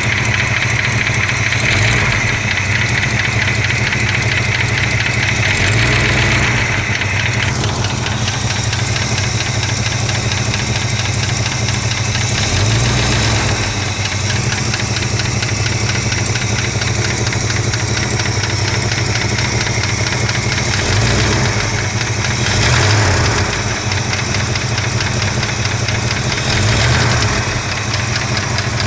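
1965 Chrysler 413 big-block V8 idling warm, with a fast, even ticking over the engine's steady running, which the owner suspects is lifter tick. A high steady whine is heard for the first several seconds and then stops.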